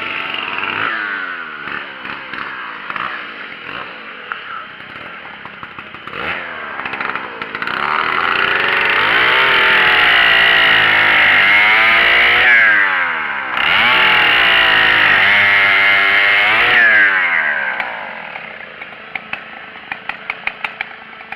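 Antique chainsaw engine running: it idles, is revved up to full speed twice for several seconds each, then drops back to a slow, uneven idle with separate firing pops near the end.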